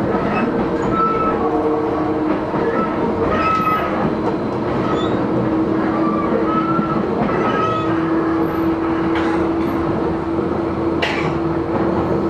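Tobu 10030 series field-chopper electric train heard from inside the passenger car while running between stations: a steady rumble of wheels on rail with a held motor and control hum, and one sharp click about eleven seconds in.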